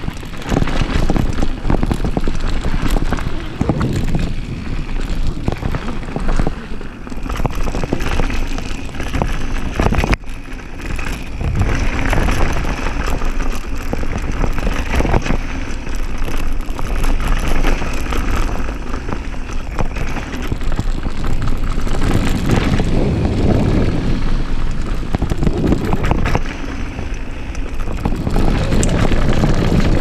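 Downhill mountain bike ridden fast over a rocky dirt trail: tyres running over dirt and stones, the bike knocking and rattling over bumps, with wind buffeting the camera microphone.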